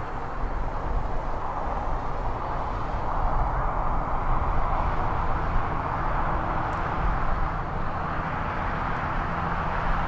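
Outdoor background noise: wind rumbling on the microphone under a steady rushing sound that swells and eases off about halfway through.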